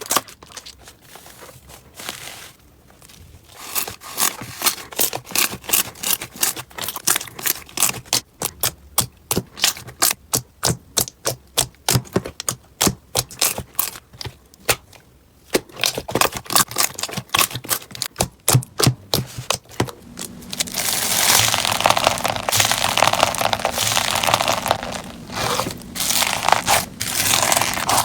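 Slime being pressed and worked by hand, giving a long run of sharp clicks and pops, several a second. About three-quarters of the way through this turns into a dense, continuous crackling.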